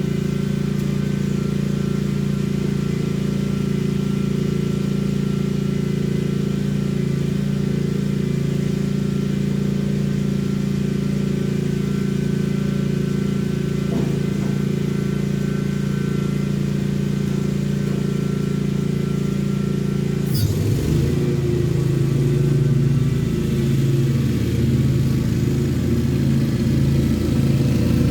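Lawn mower engine running steadily. About twenty seconds in there is a sharp click, and the engine note then changes and turns uneven.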